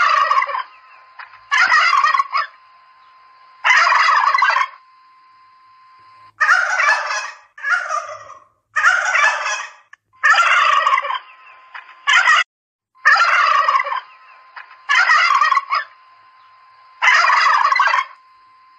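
Domestic turkeys gobbling: about a dozen loud gobbles, each about a second long, one after another with short gaps, and a faint steady whine between them.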